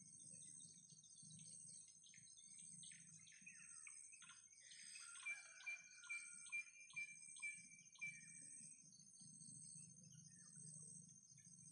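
Faint steady insect chirring, with a bird calling a quick run of about seven short notes around the middle.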